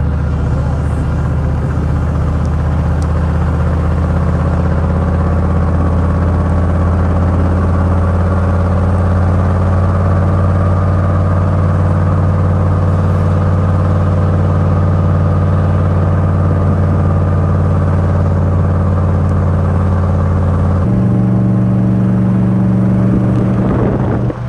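2001 GMC Sierra 2500HD pickup's engine running steadily under load while towing a travel trailer up a mountain pass, a continuous low drone. Near the end its pitch steps up abruptly.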